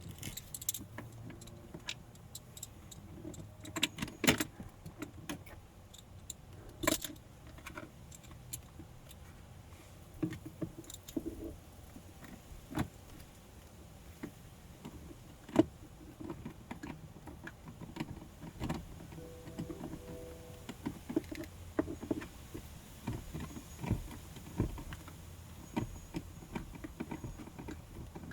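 Irregular clicks, taps and knocks of plastic parts being handled and fitted inside a car's cabin during a cabin air filter replacement, a few knocks louder than the rest.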